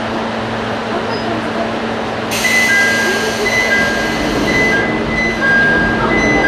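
Cabin of an Ichibata Railway 5000 series electric train standing at a station, with a steady electrical hum. About two seconds in, a hiss of compressed air starts suddenly and cuts off after about two and a half seconds. Short high tones ring on and off through the second half.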